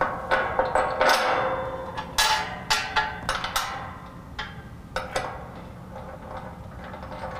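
Steel hardware on a grille guard mount clinking and tapping as a bolt, washer and locking nut are fitted by hand: irregular light metal knocks, most in the first four seconds, with a faint ringing tone under them.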